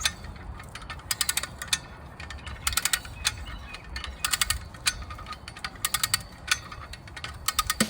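Bursts of sharp, rapid mechanical clicking, a ratchet being worked in short strokes, over a steady low rumble.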